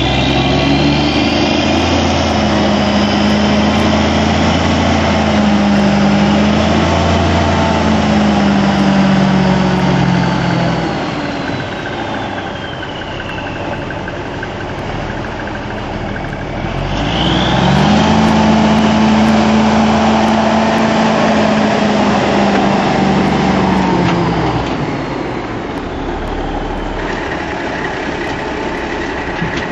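Heavy dump truck's diesel engine pulling under load, then easing off about a third of the way in. A little past halfway it pulls hard again, its note climbing, holding, and falling away near the end, with a faint high whine sliding down in pitch during each pull.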